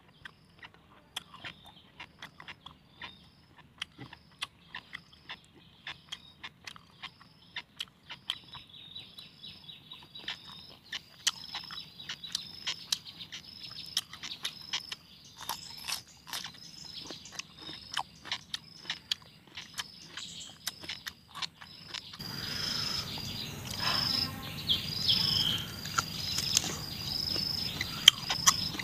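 Crisp chewing and mouth clicks as a raw cucumber is bitten and eaten, over a high chirp that repeats about three times every two seconds. The background noise grows louder about three-quarters of the way through.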